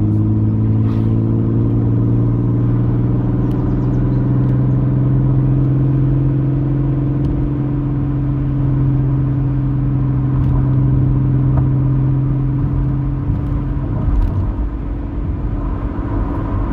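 Car engine and road noise heard from inside the cabin while driving: a steady low engine hum that holds its pitch. The hum falters for a few seconds about thirteen seconds in.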